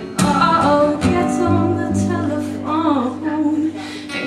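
A woman singing with sliding, held notes over a strummed acoustic guitar.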